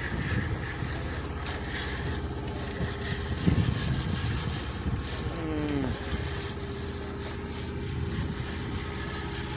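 Steady low hum of the fishing boat's engine idling. A voice briefly calls out with a falling pitch about five and a half seconds in.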